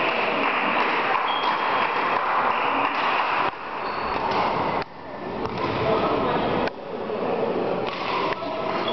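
Badminton hall ambience during a rally: a dense murmur of voices echoing in the hall, with a few short, high squeaks typical of shoes on the court floor. The level drops sharply three times, about three and a half, five and nearly seven seconds in.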